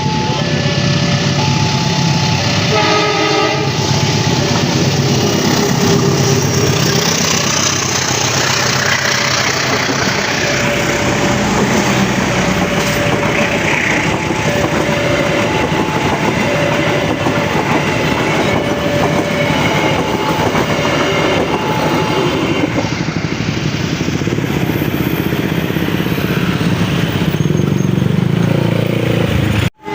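Train passing close by at a railway level crossing, a loud rumble with wheels clattering over the rail joints, while the crossing's warning alarm repeats its two-tone chime. A short multi-tone horn blast sounds about three seconds in.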